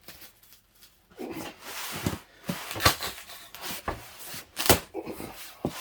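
Cardboard ration case being opened and handled: rustling and scraping of cardboard and packaging that starts about a second in, with two sharp knocks about three and about four and a half seconds in.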